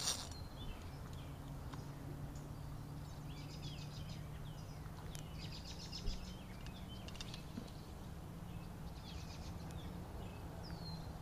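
Small birds singing in short repeated phrases at intervals over a faint steady low hum, with a sharp knock right at the start and another about six seconds in.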